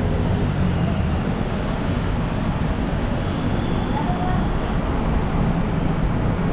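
Steady low rumble of a moving vehicle, with no change or distinct event.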